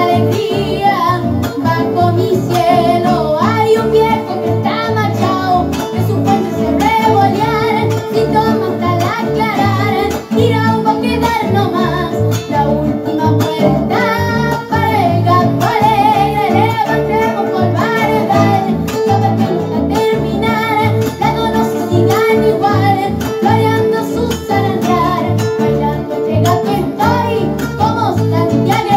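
A boy singing an Argentine gato folk song to a strummed acoustic guitar.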